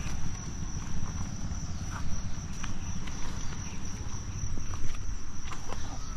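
A steady high-pitched insect trill over a continuous low rumble, with scattered light clicks.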